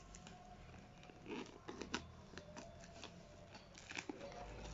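Parcel packaging being opened by hand: scattered clicks, rustling and crinkling, with one sharp click about two seconds in.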